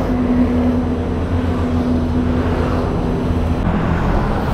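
Street traffic: vehicle engines running nearby, with a steady low hum that ends about three and a half seconds in.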